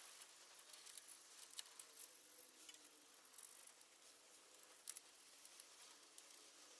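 Near silence with a few faint, scattered small clicks and ticks, the strongest about one and a half seconds in, near the middle, and again about five seconds in.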